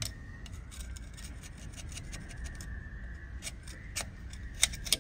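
Irregular light clicking and rattling of small hard parts and tools being handled, with a few sharper clicks near the end, over a low steady hum.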